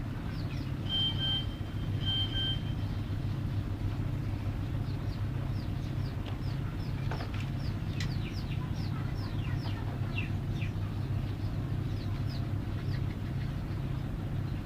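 A steady low mechanical hum with a fluttering beat in it runs under many short, high peeps that fall in pitch: chicks peeping.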